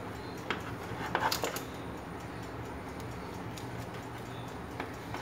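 Knife cutting through a tray of freshly baked butter cookies, giving a few short crisp clicks and scrapes, clustered about a second in, with fainter ones later, over a steady low hum.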